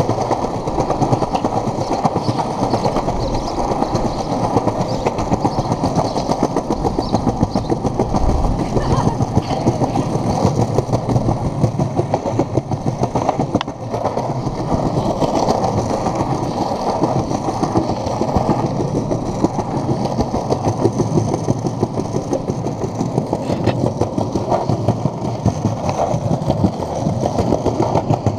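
Cruiser skateboard wheels rolling steadily over stone paving slabs: a loud, continuous gritty rumble with an occasional sharper click.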